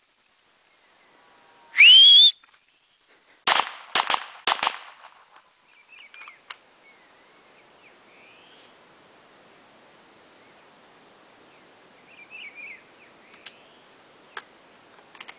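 A shot-timer start beep, a loud tone lasting about half a second, then a fast string of several pistol shots fired within about a second and a half.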